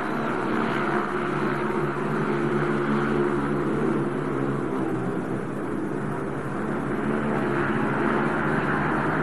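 Speedway motorcycle's single-cylinder methanol engine running steadily, its pitch wavering slightly up and down as the bike is ridden round the track.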